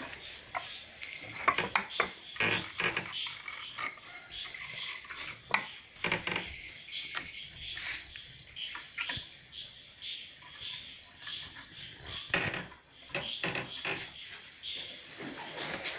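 Short trains of high chirps, several quick pulses each, recurring every two to three seconds, typical of a chirping insect, among irregular clicks and knocks.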